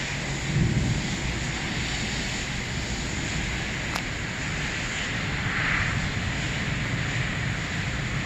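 Steady hiss of heavy rain in a thunderstorm, with a low rumble underneath and a single sharp click about four seconds in.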